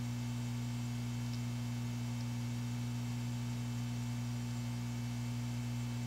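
Steady low electrical mains hum, a deep tone with an overtone above it; nothing else stands out.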